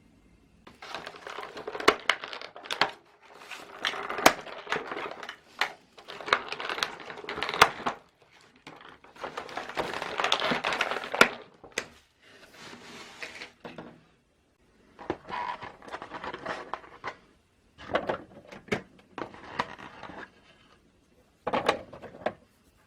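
Kitchen food-preparation noises: repeated bursts of crunching and crinkling, each a second or two long, with sharp clicks and short pauses between them.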